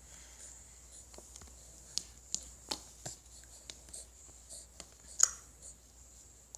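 Small clicks and taps of a baby eating, scattered and irregular, with the sharpest one about five seconds in.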